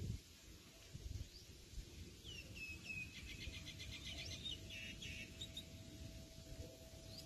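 Wild birds singing: a few short chirps and then a quick, rapid trill from about two to five and a half seconds in. Underneath, a low rumble and a faint steady tone.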